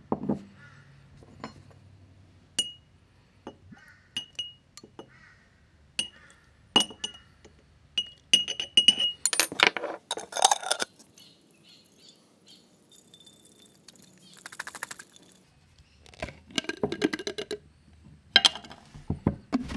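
Metal objects clinking and knocking at irregular intervals, some clinks ringing briefly at a high pitch, with a busier stretch about halfway through and again near the end.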